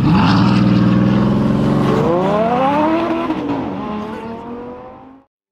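Bugatti Veyron's quad-turbocharged W16 engine running. Its pitch rises from about two seconds in and drops back, then the sound fades and cuts off near the end.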